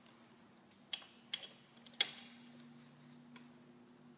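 A few sharp metallic clicks from a socket wrench torquing the derby cover screws on a Harley-Davidson primary cover to 9–10 ft-lb: three within about a second, the last the loudest with a brief ring, then one faint click later.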